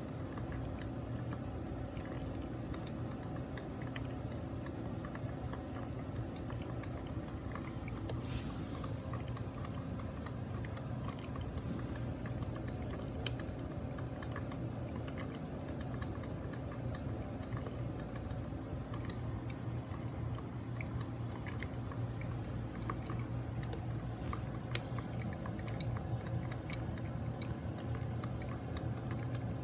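1996 Mr. Coffee BL5 4-cup drip coffee maker brewing: many small irregular pops, crackles and drips over a steady low hum.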